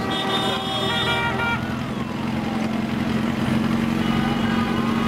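Motorcycle engines running steadily at low speed. A horn sounds from the start for about a second and a half, stepping in pitch partway, and a whine rises and falls twice.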